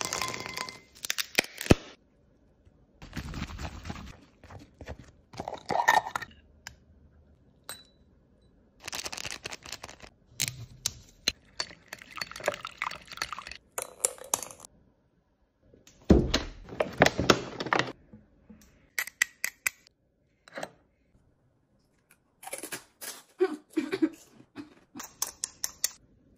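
Close-up food-preparation sounds of crisp fried puri shells for pani puri: tipped out of a metal strainer onto a plate, set into small ceramic bowls with light clinks, then cracked open and spooned full of filling. It comes as short, separate bursts of crunching, tapping and scraping with brief pauses between them.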